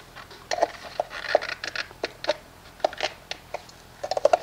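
Light clicks and scrapes of a cut-open Wix oil filter's metal canister being handled as its pleated element is worked out, with a quick run of clicks near the end.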